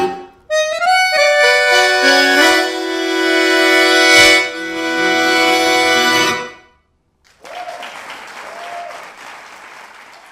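Hohner accordion playing the closing bars of a tango: a quick run of rising notes, then a long held final chord that cuts off about six seconds in. After a moment of silence, applause starts and slowly fades.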